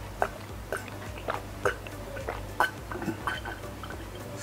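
A person gulping milk from a glass jar in quick repeated swallows, about two or three short gulping clicks a second.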